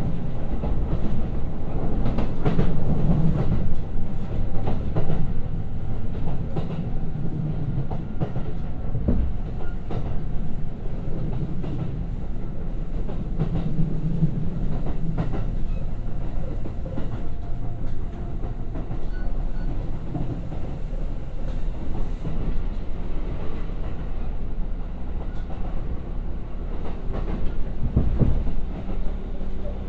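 Kintetsu 1021 series electric commuter train running, heard from inside the car: a steady rumble of wheels on the rails, with the clickety-clack of the wheels crossing rail joints now and then.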